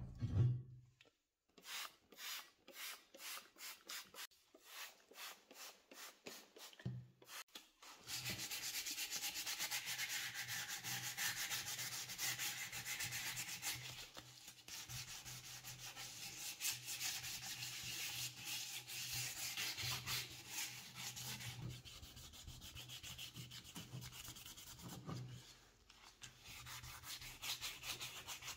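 Green abrasive pad scrubbed back and forth over a wet, coated cast iron part. It starts as separate strokes, about two or three a second, then turns into fast steady rubbing from about eight seconds in.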